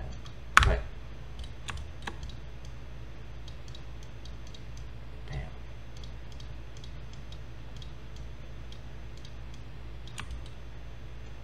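Irregular computer mouse and keyboard clicks, made while working in 3D modelling software, over a steady low hum. One much louder knock comes about half a second in.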